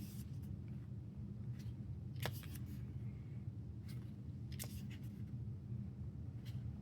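A few short paper rustles and light clicks from handling a glossy album photobook as its pages are turned, over a steady low hum.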